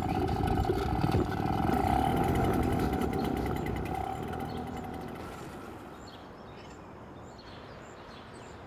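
A motor vehicle engine running, growing louder for the first couple of seconds and then fading away over the next few seconds.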